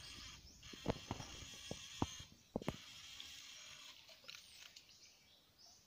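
Sharp, irregular clicks and light splashes of an electrofishing pole being worked through a shallow stream, about half a dozen in the first three seconds, over a faint steady high hiss.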